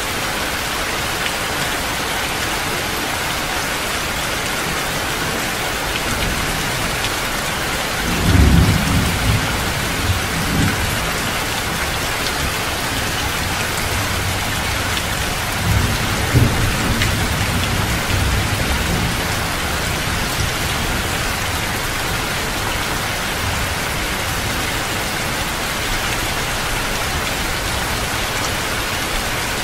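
Heavy rain pouring steadily, with low rolls of thunder rumbling twice, about eight seconds in and again about sixteen seconds in.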